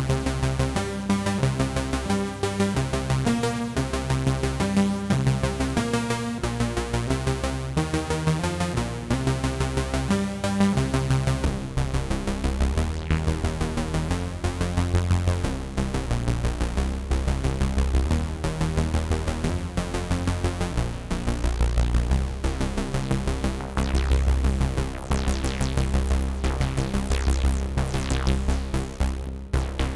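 Analogue Solutions Polymath paraphonic analog synthesizer playing a rhythmic sequenced pattern over a heavy bass line. About halfway through the sound changes to a thicker, buzzier texture with sweeping highs.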